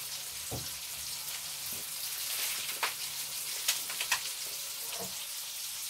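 Food sizzling in a hot frying pan: a steady frying hiss with a few sharp crackling pops around the middle.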